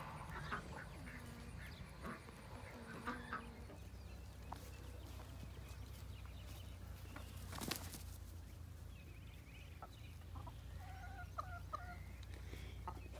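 Hens clucking quietly on and off, over a low steady hum.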